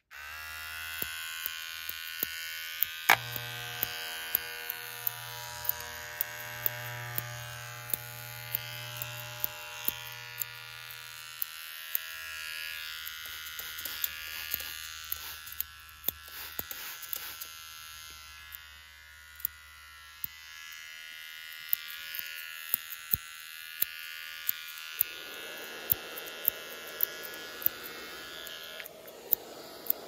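Barber's electric hair clippers buzzing steadily, with frequent sharp clicks throughout. A low hum comes and goes. About 25 seconds in, a softer rushing noise joins the buzz.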